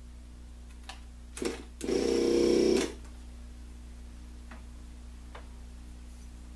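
Desoldering tool's vacuum pump buzzing for about a second, sucking molten solder off a joint, with a few faint clicks before and after.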